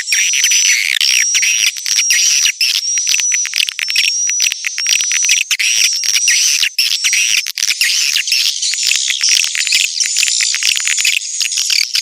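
Swiftlet lure call recording: a dense flock of edible-nest swiftlets twittering and chirping at once, with a high, even call repeating about once a second over the clicking chatter. It is the kind of calling sound played from a swiftlet house to draw the birds in to roost and nest.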